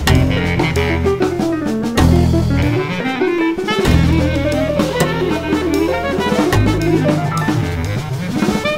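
Bass clarinet solo over a jazz ensemble, with drum kit hits and long low bass notes underneath.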